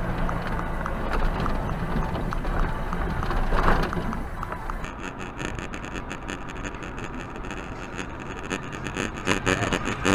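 Engine and road noise inside a moving vehicle's cabin, recorded by a dash camera. About five seconds in, it cuts to a different cabin recording: a thinner hum with dense, rapid crackling.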